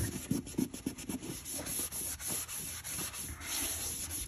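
A rag rubbed hard back and forth over vinyl plank flooring in quick, repeated strokes, scrubbing out a rust stain set into the floor's grain.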